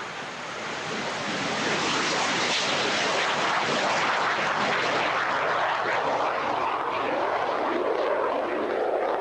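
BAE Hawk jet trainer's Adour turbofan at takeoff power, a loud rushing jet noise that swells over the first second or two as the aircraft rolls past and lifts off. Near the end it turns duller and deeper as the jet climbs away.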